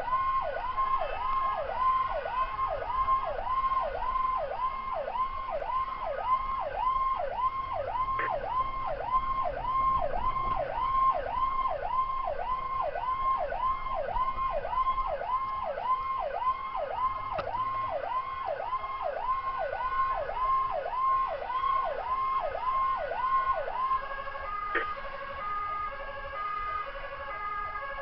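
Electronic emergency-vehicle siren on a fast yelp, its pitch sweeping up and down about twice a second. About 24 seconds in it switches to a two-tone hi-lo wail, alternating between two steady pitches.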